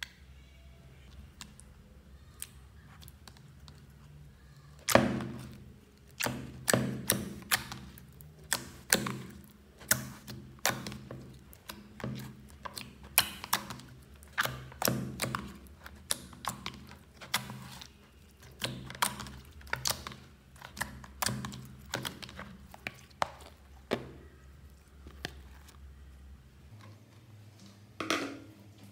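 Hands kneading and folding a soft glue slime in a plastic bowl: a run of wet, sticky slaps, one or two a second, each with a dull knock from the bowl, starting about five seconds in after a faint start.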